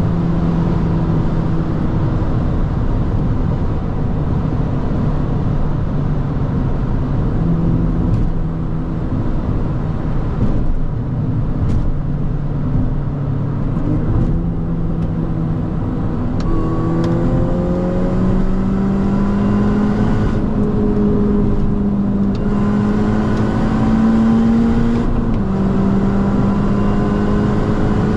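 Mini JCW GP (R53) supercharged 1.6-litre four-cylinder pulling at autobahn speed under steady road and wind noise. Engine pitch holds steady for about half the time, then climbs slowly as the car accelerates, dips once with an upshift near the end and climbs again.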